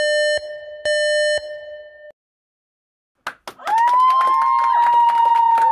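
Two electronic beeps, the second fading out, then a second of dead silence. About halfway through comes a click, then loud overlapping held cries with many sharp clicks.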